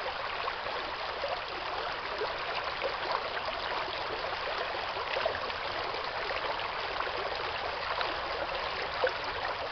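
Shallow, rocky brook running steadily over stones, an even trickling rush, with a few small clicks here and there.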